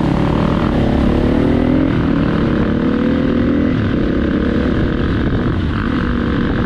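KTM 350 dirt bike's single-cylinder four-stroke engine pulling under throttle. Its pitch climbs steadily and drops a little past halfway, as at a gear change. It is heard from the helmet, over a steady rush of wind.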